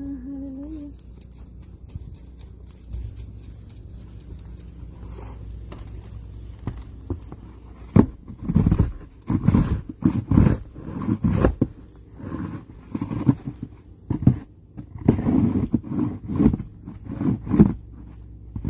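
Snow shovel scraping through snow in a quick run of strokes, starting about eight seconds in, over a low steady background noise.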